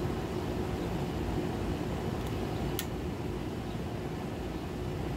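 Steady drone of an air conditioner's outdoor unit running, with a faint even hum underneath and one brief click about halfway through.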